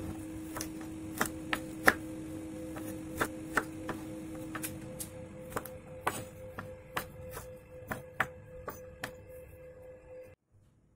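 Kitchen knife dicing carrot slices on a bamboo cutting board: irregular sharp knocks of the blade through the carrot onto the wood, stopping about ten seconds in.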